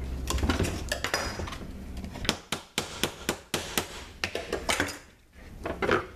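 Sharp, irregular wooden knocks and clatter as a hinged wooden soap mold is set down and handled on a countertop, about a dozen in quick succession in the middle of the stretch.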